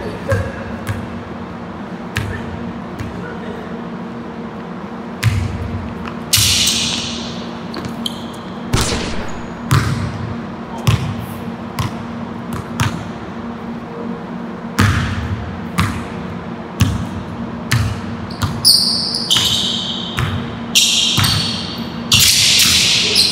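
Basketball dribbled on a hardwood gym floor, its bounces echoing around the large hall, with sneakers squeaking on the court in short bursts, most of them near the end. A steady low hum runs underneath.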